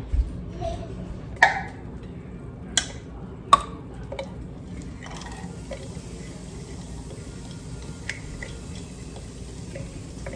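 Butter melting in a stainless steel pan over a gas burner with a faint, steady sizzle, broken by a few sharp knocks in the first four seconds. Later come light ticks as minced garlic is scraped from a plastic chopper bowl into the pan.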